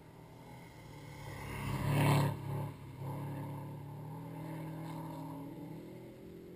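A car engine drives past close by, loudest about two seconds in with a burst of tyre and dirt noise, then keeps running as it moves off, its pitch rising again near the end as it accelerates.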